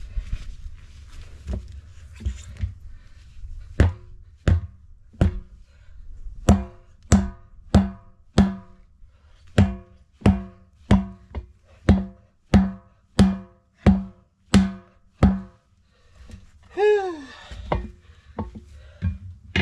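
About twenty hard blows, roughly two a second, struck on a tyre to drive it onto its wheel rim, with the metal rim ringing after each strike. A few lighter taps come before them, and a short falling squeal follows near the end.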